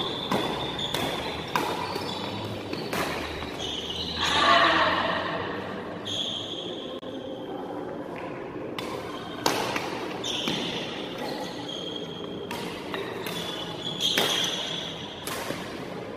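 Badminton rally in a large echoing hall: rackets strike the shuttlecock with sharp cracks about a dozen times, with short high squeaks of shoes on the court between the hits. There is a louder burst about four seconds in.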